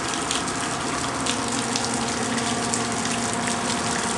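Storm rainwater running and gushing steadily over the ground, a constant rushing of water.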